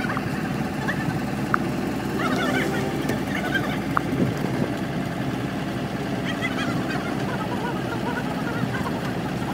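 An engine running steadily at idle, with short high chirps now and then above it and a couple of sharp clicks.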